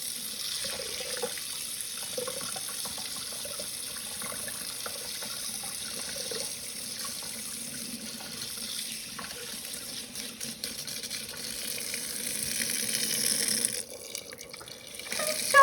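Kitchen sink tap running steadily, with a slight rise in force shortly before it is shut off, about two seconds before the end.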